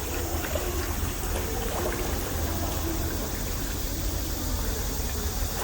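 Shallow water running and trickling steadily.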